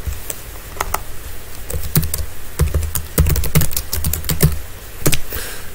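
Typing on a computer keyboard: irregular keystroke clicks with dull thuds under them, busiest in the middle.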